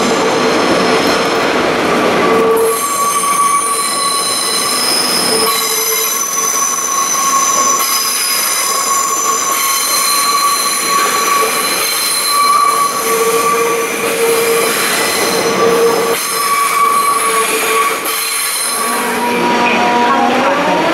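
Train wheels squealing on the rails as a train moves slowly through the station: several shrill, steady tones that come and go and change pitch. Near the end a rising whine sets in.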